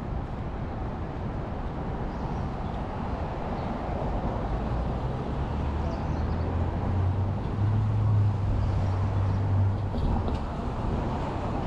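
Street traffic: a passing vehicle's engine drone swells to its loudest about two-thirds of the way through, then fades, over a steady wash of road noise.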